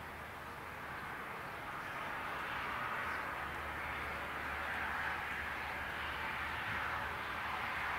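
Distant engine noise, a steady rumble that swells slowly over the first few seconds and then holds.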